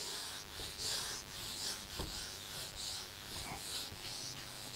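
Whiteboard duster rubbing across the board to erase writing: a series of faint swishing strokes, about two or three a second.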